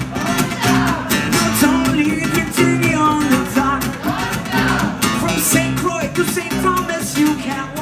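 A man singing live to his own strummed acoustic guitar.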